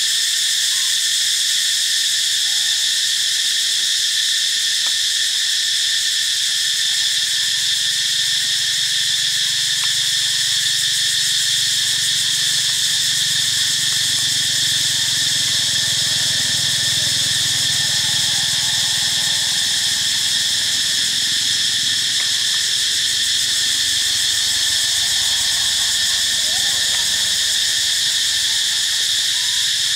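Steady chorus of insects, such as cicadas or crickets: a constant high-pitched drone made of several layered tones that does not change.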